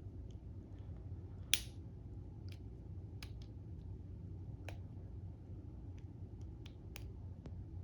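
Scattered small, sharp metal clicks and taps of a tool working at the retaining clip on the back of a Kwikset lock cylinder, with one louder snap about a second and a half in, over a steady low hum.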